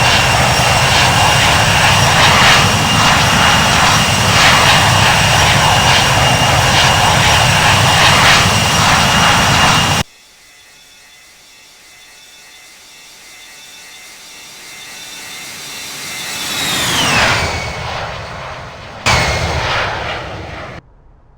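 Jet airliner engines: a loud steady whine at high power that cuts off abruptly about ten seconds in. A jet is then heard passing, swelling and dropping in pitch, followed by a short loud falling whine that also cuts off abruptly near the end.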